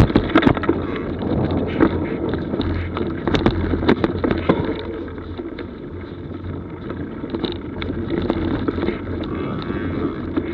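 Mountain bike rolling along a dirt forest trail: tyre noise with frequent rattling knocks from the bike over bumps and roots, busiest in the first few seconds, and wind on the microphone.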